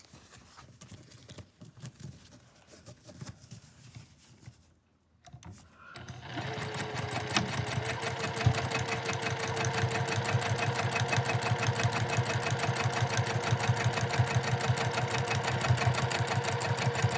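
Faint handling clicks, then about six seconds in an electric sewing machine starts and runs steadily, stitching in a rapid, even rhythm over a steady motor hum.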